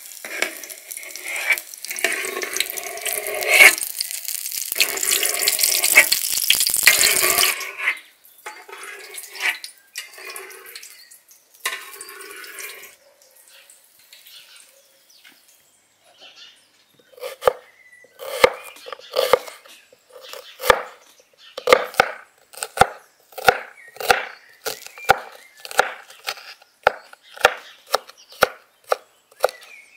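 Hot oil sizzling loudly in a saj pan as fried pieces are spooned out, cutting off after about seven seconds. After a few light scattered knocks, a knife chops an onion on a wooden board in steady strokes, about two a second.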